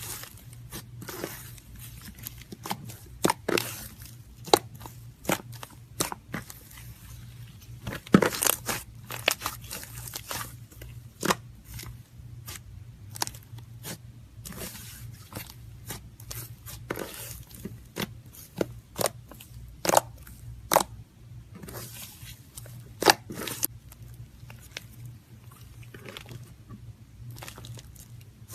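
Slime being squeezed and pulled by hand, making irregular sticky pops and crackles, some sharper and louder than others. A low steady hum runs underneath.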